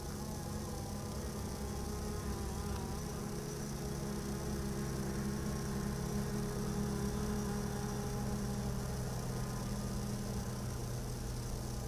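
DJI Phantom 3 Standard quadcopter's motors and propellers buzzing in flight: a steady hum made of several tones, the higher ones wavering slightly in pitch.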